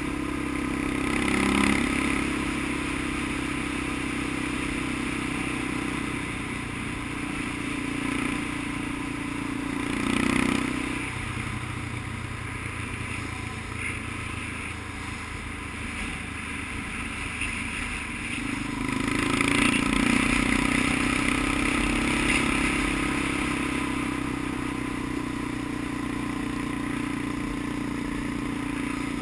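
Small off-road vehicle engine running steadily while riding a dirt track. Its note dips briefly about ten seconds in, then grows louder a little past the middle.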